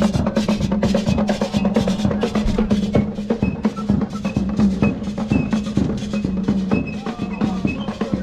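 Drum-led music with a fast, busy beat of sharp strokes over a steady low held tone.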